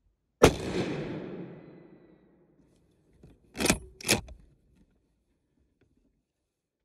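A single rifle shot from a Blaser R8 in .30-06 about half a second in, its echo rolling away over about two seconds. About three seconds later come two short, sharp mechanical clacks half a second apart: the straight-pull bolt being worked back and forward to chamber the next round.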